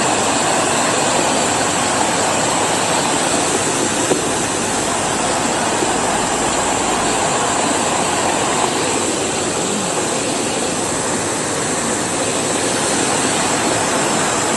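Swollen, muddy river in flood rushing across a road: a steady, even rush of water.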